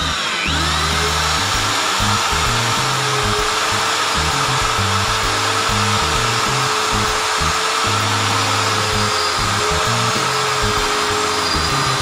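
Mailtank 13mm impact drill running at steady high speed, its bit grinding into a steel bar with a constant motor whine. The bit is dull, so it cuts slowly.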